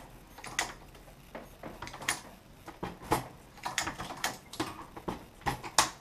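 Hornady Lock-N-Load AP progressive reloading press being cycled by hand: irregular metallic clicks and clacks as the lever drives the ram up and down and the shell plate auto-indexes, with brass cases and bullets handled at the press.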